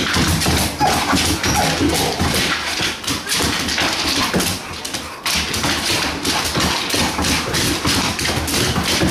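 A dog's claws clicking and scrabbling fast and irregularly on a hardwood floor, with thuds of paws, as the dog spins and lunges after a light spot.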